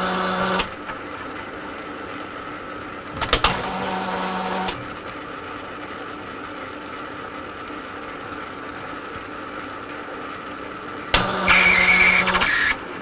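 Metal lathe running through a screw-cutting pass. Three spells of louder gear whine each start with a clunk. The last, near the end, is the loudest and carries a harsh high whine from the cut, which the operator takes as something gone amiss with the thread.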